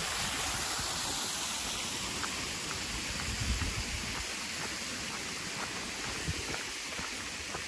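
A steady rushing noise, water-like, with scattered light ticks over it.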